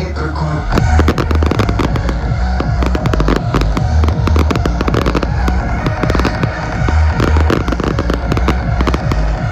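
Fireworks display: a dense run of rapid crackling pops begins about a second in, over loud music with a heavy bass beat.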